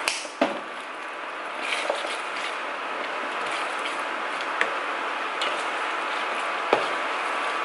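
Thick tomato meat sauce simmering with a steady sizzling hiss while it is stirred with a slotted spoon in a nonstick pan. The spoon knocks sharply against the pan a few times, once just after the start and once more loudly near the end.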